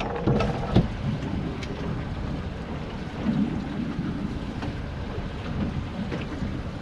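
Wind rumbling on the microphone over the steady wash of the sea around a small boat, with a couple of light knocks about half a second in.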